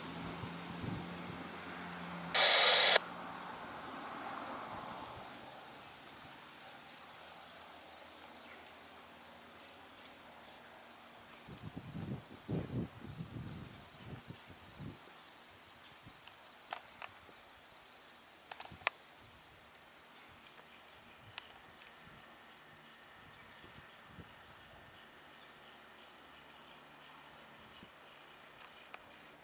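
Steady chorus of crickets and other insects, a high rapid pulsing trill. About two and a half seconds in, a brief loud noise lasting about half a second stands out above it.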